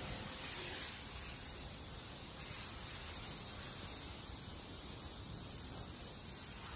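Steady hiss of a pressure-washer water spray washing down a car.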